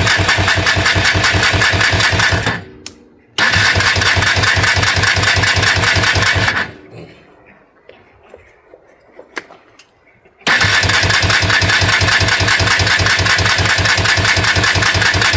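Polaris 300 two-stroke ATV engine being cranked on its electric starter in three separate tries of a few seconds each, with a fast, even pulsing while it turns over; each try stops abruptly.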